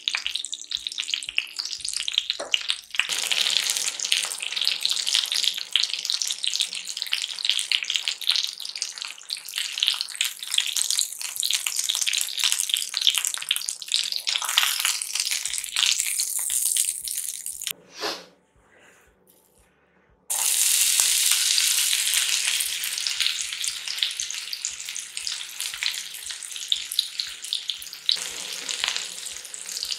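Flour-dredged chicken breasts sizzling and crackling in butter in a frying pan. After a brief silence about two-thirds of the way through, chopped onion and garlic sizzle in the same pan.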